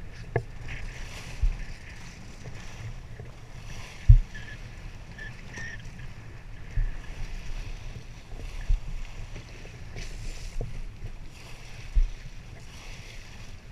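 Steady wash of wind and water alongside a small offshore fishing boat, broken by about six irregular low thumps, the loudest about four seconds in, as waves slap the hull.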